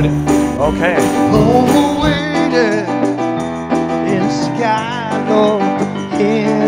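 A live band playing: sustained keyboard chords under a wavering lead melody line. The low drum beat drops out about two seconds in.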